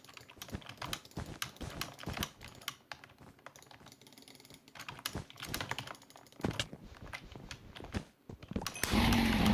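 Typing on a computer keyboard: irregular runs of key clicks. Near the end a louder steady sound with a low hum comes in.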